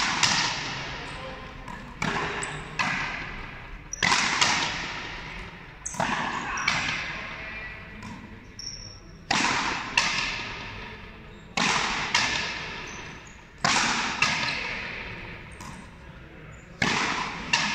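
Frontenis rally: the rubber ball cracking off strung rackets and the front wall, sharp hits coming mostly in pairs about every two seconds, each one echoing long in the big hall.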